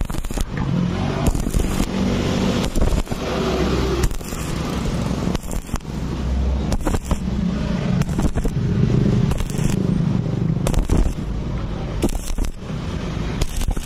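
Stick (MMA) welding arc on thin galvanized square tube, crackling and sputtering. The arc is broken and re-struck in a stop-start rhythm, with a sharp flare roughly every second or so.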